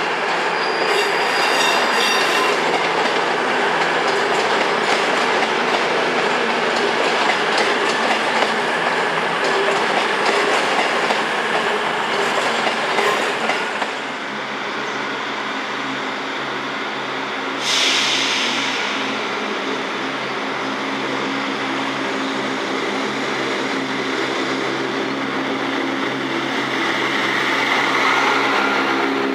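A train moving through a station: wheels clatter over rail joints, with brief high wheel squeal near the start and a sudden hiss about two thirds of the way in. A steady low engine hum grows louder near the end.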